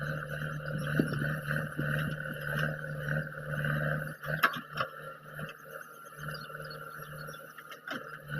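JCB 3DX backhoe loader's diesel engine running steadily, with a few sharp knocks about halfway through and a couple more near the end.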